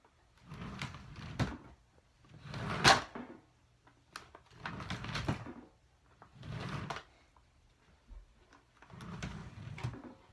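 Wooden desk drawers being slid open and shut, about five scraping slides, with a sharp knock about three seconds in.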